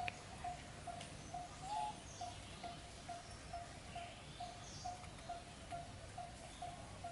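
A bird calling one short note over and over, evenly at about two a second, with fainter scattered high chirps behind it.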